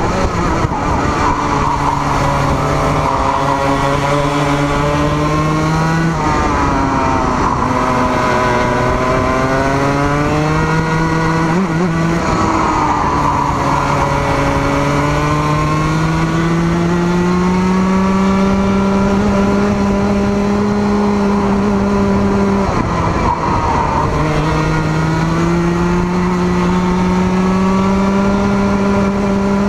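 Racing kart engine at full throttle, heard from on board: its pitch climbs steadily along the straights and falls sharply as the kart lifts and brakes for corners, about six, twelve and twenty-three seconds in.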